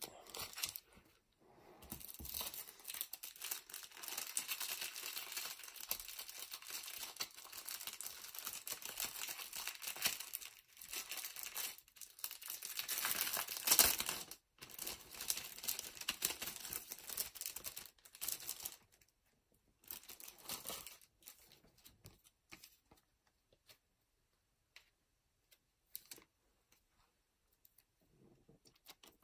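Crinkling and rustling of a clear plastic sleeve and a foil booster-pack wrapper being handled as the pack is slid into the sleeve. It goes on steadily from about two seconds in, peaks briefly about halfway, stops at about 19 s, and is followed by a few scattered small rustles and taps.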